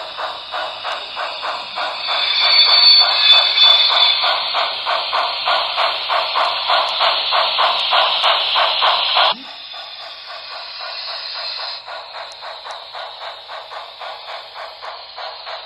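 Sound-equipped HO scale 2-8-0 Consolidation steam locomotive chuffing steadily through its small onboard speaker, about three to four chuffs a second, with a high tone over the chuffs for a couple of seconds about two seconds in. The chuffing carries on as the engine crosses the dead spot of track, kept alive by its onboard capacitance. It drops sharply in level about nine seconds in and goes on more quietly.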